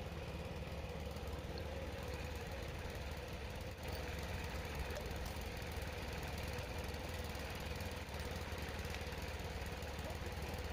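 Steady background hum of a running engine or machine, even and unchanging, with no distinct knocks or strikes.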